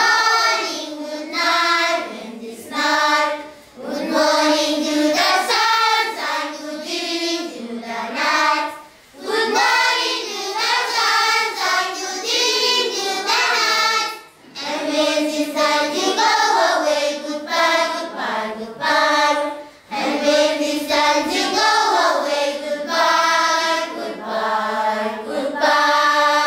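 A class of schoolchildren singing a song together, held notes in phrases of a few seconds with short breaks between them.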